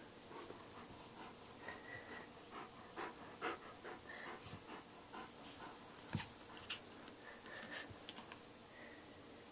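Rottweiler panting softly, with scattered faint clicks and scratches and a few brief high squeaks.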